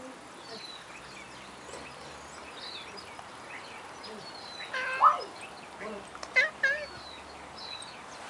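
A domestic cat meowing, with a loud call a little past the middle and two shorter ones soon after, begging for more whitebait.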